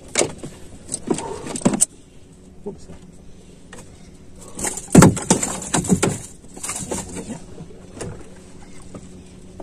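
Knocks, thumps and metal rattles in a small boat as a caught fish is handled and lifted aboard, with a burst of loud knocks about five seconds in.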